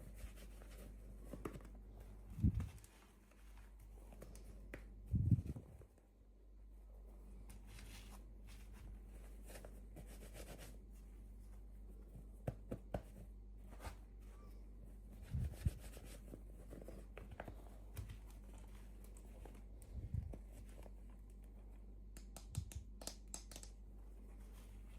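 Hands unpacking miniature toys: packaging tearing and crinkling, with soft thumps and clicks every few seconds over a steady low hum.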